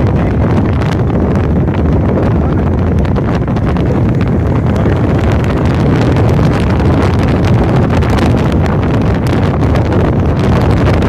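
Wind buffeting a phone's microphone at the open window of a moving vehicle, over the vehicle's low rumble; loud and steady.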